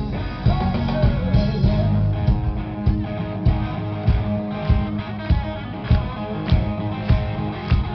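Live rock band playing through a PA, heard from within the crowd: electric guitars over a steady drum beat of about three hits every two seconds.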